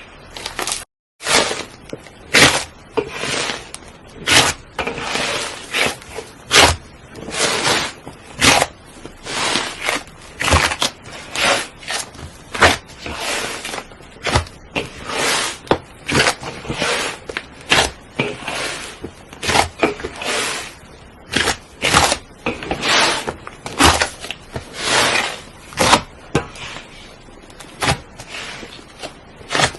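A large lump of slime being kneaded and squeezed by hand, giving a run of wet squishes, clicks and air-bubble pops, about one or two a second, with a brief gap about a second in.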